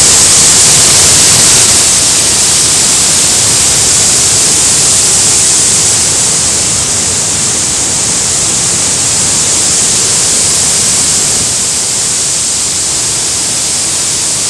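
Loud, steady roar of rushing floodwater and a waterfall in spate, heard as a continuous hiss.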